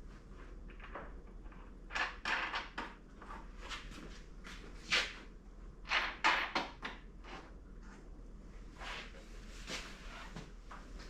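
Irregular knocks, clacks and scrapes of wood and metal parts being handled, as a lathe router jig and a scrap workpiece are set in place, with sharper clunks about two, five and six seconds in. No router or lathe motor is running.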